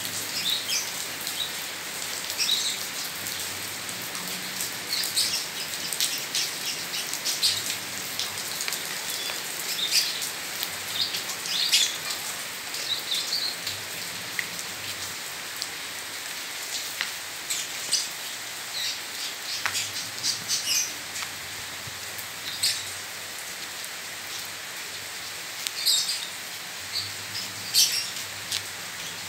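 Rain falling steadily on paving and leaves: a constant hiss with frequent short, higher sounds scattered through it.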